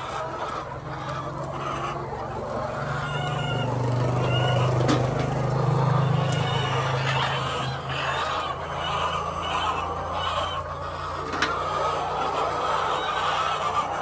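A flock of white laying hens clucking and squawking, with a low steady hum under the first half and a single sharp click near the end.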